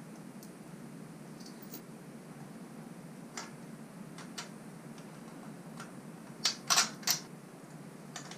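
Small metal parts clicking and clinking as a torque arm, washer and nut are fitted onto the axle of an e-bike rear hub motor: a few light clicks, then a quick cluster of three louder clinks about six and a half seconds in, over a faint steady hum.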